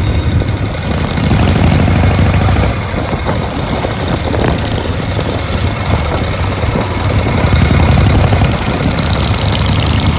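Cruiser motorcycles running loud at road speed in a group, a dense low engine sound that swells twice as the riders open the throttle.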